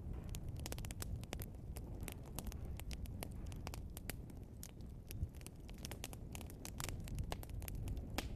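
Burning logs crackling and popping: frequent sharp, irregular snaps over a low, steady rumble of the fire.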